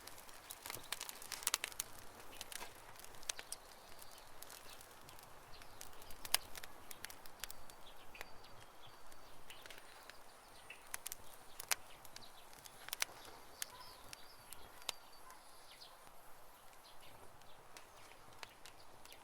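Wood campfire crackling with irregular sharp pops, and a few short bird chirps in the background.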